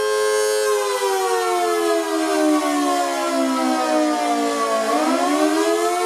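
1967 Federal Model 2T-125V two-tone electromechanical siren sounding the attack signal. Its two-note chord holds steady for under a second, slides down in pitch for about four seconds, then climbs quickly back up near the end, the wavering rise and fall of the attack signal.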